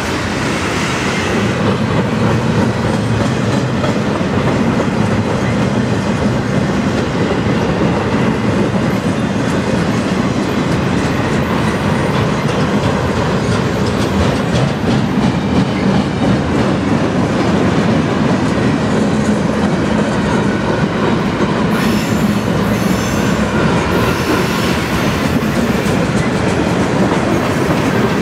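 Loaded railroad flatcars of a freight train rolling past close by, steel wheels clicking rhythmically over the rail joints under a steady rumble.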